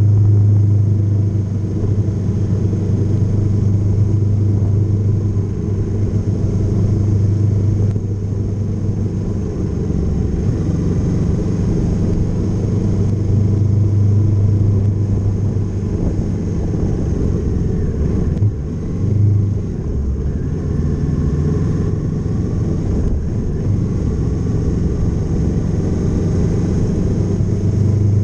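Kawasaki Z650 motorcycle engine running at a steady cruise, picked up by a camera mounted on the bike. The engine note holds fairly even, with a short dip and pick-up in level about two-thirds of the way through.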